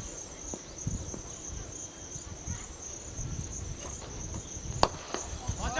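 Insects chirring steadily in a high, pulsing band over a low rumble, with a single sharp crack nearly five seconds in.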